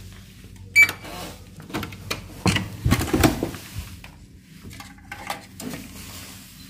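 Hotel room door being opened with a keycard: a short electronic beep with a sharp latch click about a second in, then rattling and knocks as the handle turns and the door swings open. Smaller clicks follow near the end as the keycard goes into the wall power slot.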